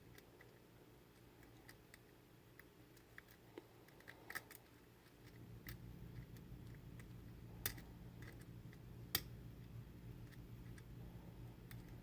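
Faint, scattered metallic clicks and ticks of a lock pick working the pins of a Wink Haus mortise cylinder, with a few sharper ticks in the second half. A low steady hum comes in about halfway.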